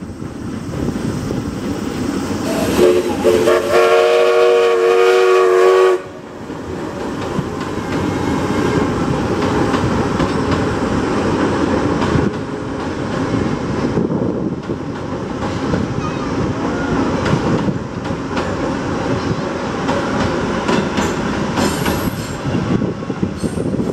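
A steam locomotive's whistle sounds one long blast of about three seconds, a few seconds in, and cuts off suddenly. After it, the train rumbles over a steel girder bridge with wheel clatter as the coaches and the rear electric locomotive roll past.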